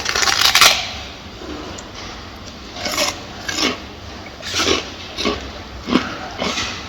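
A gorilla eating, with rasping, crunching chewing and rustling of its food. There is a loud burst in the first second, then short crunches every half second to a second.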